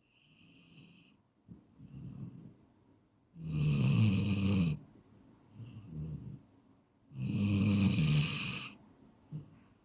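A person snoring: two loud snores about three and a half seconds apart, each lasting over a second, with quieter breaths in between.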